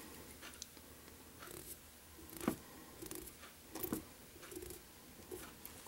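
Faint handling noises of fingers pinching and pulling a wisp of superfine dubbing at a fly-tying vise: soft rustles and a few light clicks, the clearest about two and a half seconds in and again near four seconds.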